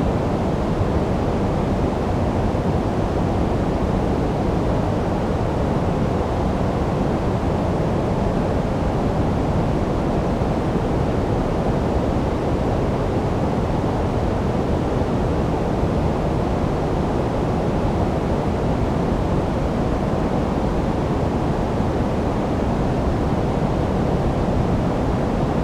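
Steady, unbroken synthetic noise of the kind sold as white noise for sleep, a deep, even rushing hiss with most of its weight in the low end and little treble. It does not change.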